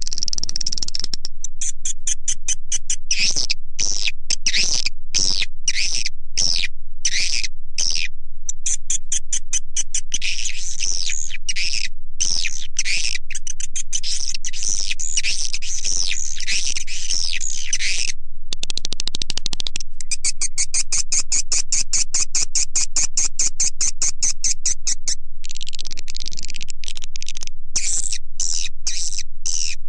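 Swiftlet lure-call recording: edible-nest swiftlets' rapid, high twittering chirps in dense trains with short pauses, played at a steady loudness. It is the call sound that swiftlet farmers broadcast to draw the birds into a nesting house.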